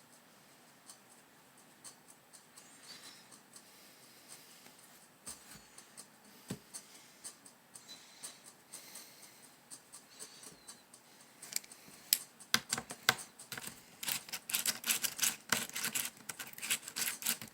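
Small hard clicks and scrapes of disassembled laptop parts being handled, scattered at first and turning into a rapid run of clicking and rattling in the last few seconds.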